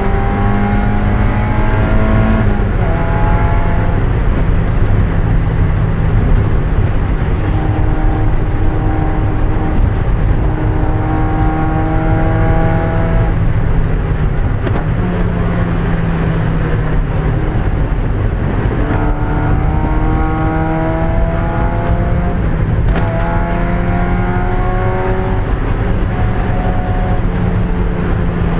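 1995 Mazda Miata's 1.8-litre four-cylinder engine racing, its pitch climbing through each gear and dropping back at the shifts several times. Over it runs a loud, steady rush of road and wind noise.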